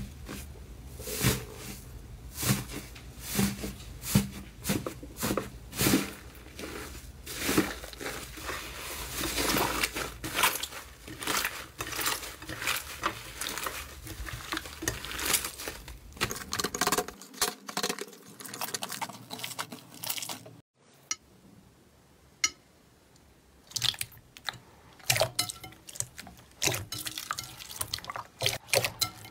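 Hands kneading, pressing and pulling thick slime, making many short sticky crackles and pops. They go quiet for a few seconds about two-thirds through, then come back as wetter squishing of clear slime in a glass bowl.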